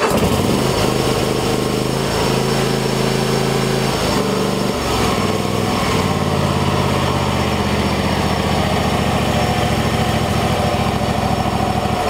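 Kohler Courage two-cylinder engine on a lawn tractor starting at once on full choke and running steadily, a sign that the hard start has been cured now that the choke cable is adjusted to close the choke fully. The engine note shifts about five seconds in as the throttle/choke lever is moved.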